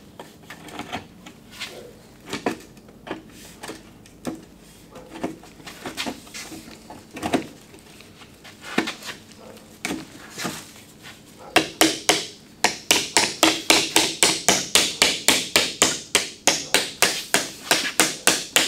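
Scattered knocks and clicks as a metal windshield top rail is worked onto a Willys MB windshield's glass and rubber seal. About two-thirds of the way in they give way to a fast, even run of sharp taps, about four or five a second, as the rail is tapped down onto the seal.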